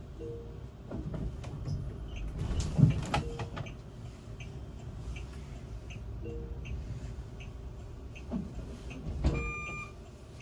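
Cabin noise inside a driverless autonomous bus waiting at an intersection: a low steady rumble, with cars passing on the road outside, loudest about three seconds in. A faint regular ticking runs underneath, and a short electronic beep sounds near the end.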